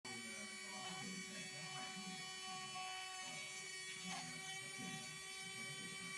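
Faint steady electrical hum made of several fixed tones, with a faint uneven murmur underneath.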